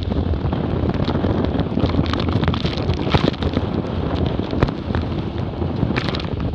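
Heavy wind buffeting the microphone and water rushing past the hulls of a Hobie 20 catamaran sailing fast, with many sharp splashes of spray hitting the boat.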